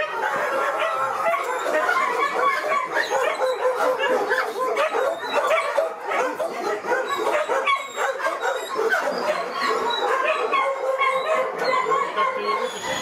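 Many kenneled shelter dogs barking at once, a dense run of overlapping barks that goes on without a break.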